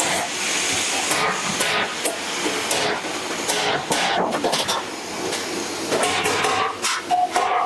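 Workshop noise of titanium pie-cut exhaust sections being assembled: a steady hiss with many sharp metal clicks and knocks. Guitar music comes in near the end.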